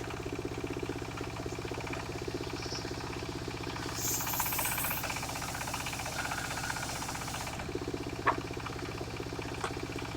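Engine of a mobile circular sawmill running steadily with a fast, even pulse. There is a brief high hiss about four seconds in and a few sharp clicks near the end.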